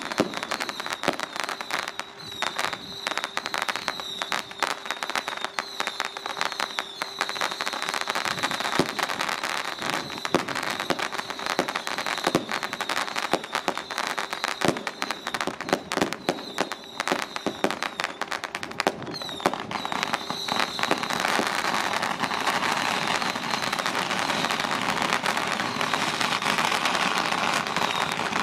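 Strings of firecrackers going off in rapid, irregular cracks, thickening into a dense continuous crackle about twenty seconds in and breaking off just before the end.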